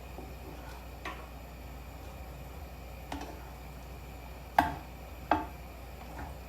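A utensil knocking against a pan while frying noodles are stirred: a few scattered clinks, the two loudest close together past the middle.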